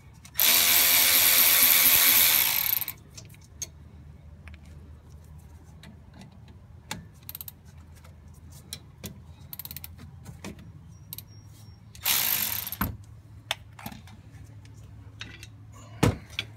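Milwaukee M12 3/8-inch cordless ratchet running for about two and a half seconds as it spins out a brake caliper bolt, followed by light clicks of metal being handled. A second, shorter run of the ratchet comes about twelve seconds in, and a sharp metallic knock near the end.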